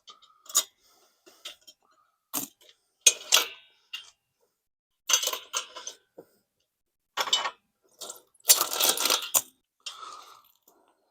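A worn, slack motorcycle roller drive chain clinking and rattling in short bursts, about a second or two apart, as it is unhooked and pulled off the sprockets by hand. The longest rattle comes about two-thirds of the way through.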